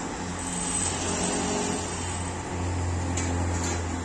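A steady low mechanical hum, growing a little louder in the second half, with two faint clicks near the end.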